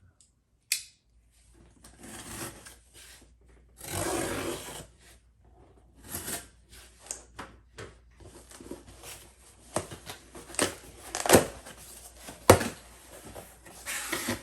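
A cardboard shipping box of graded comics being opened by hand: packing tape torn off and packing material rustled, then a run of sharp clicks and knocks as the contents are handled near the end.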